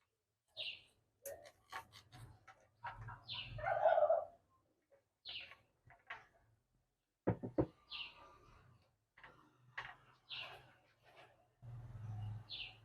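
A bird chirping outside, one short high chirp about every two and a half seconds. Between the chirps come light clicks and knocks as wire and pliers are handled, and about four seconds in there is a louder, lower sound lasting half a second.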